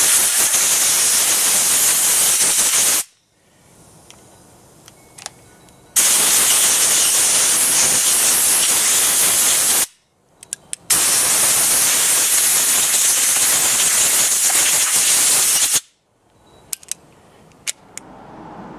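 Compressed-air blow gun hissing in three long bursts over a stainless steel revolver, blowing stray glass bead blasting media out of it. After the last burst come a few light sharp clicks, as the revolver's action is worked to check for grit.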